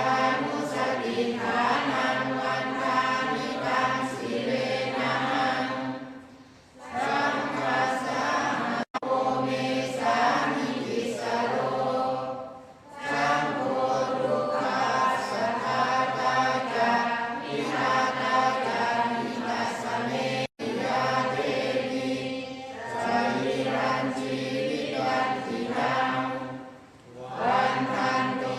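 A group chanting Pali verses in unison during Thai Buddhist evening chanting (tham wat yen). The chant runs on steady pitches in long phrases, broken by short breath pauses four times.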